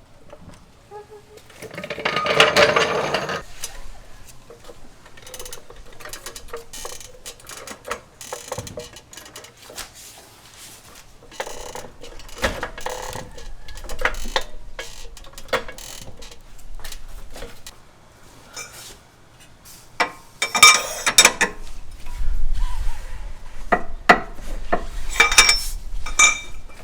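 Hand tools working on the car's suspension bolts: a ratchet wrench clicking in short runs while a control-arm bolt is loosened and backed out, with metal-on-metal clinks and knocks. There are louder rattling bursts about two seconds in, near twenty seconds and again near the end.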